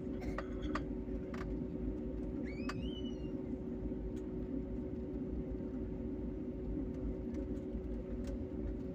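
Jet airliner cabin noise on the runway: a steady low engine hum with a steady drone tone in it.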